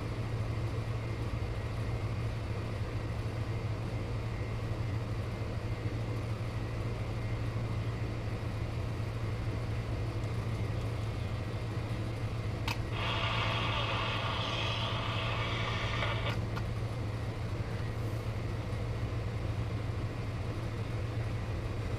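Shortwave radio receiver giving a steady low hum and hiss while being tuned for stations. About 13 seconds in, a band of brighter, buzzy static or signal comes in for about three seconds, then drops away.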